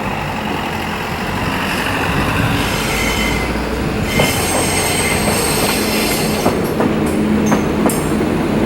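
HD300 hybrid shunting locomotive moving slowly over the track: steel wheels squealing with high whining tones, growing louder, with a few sharp clacks over rail joints in the second half.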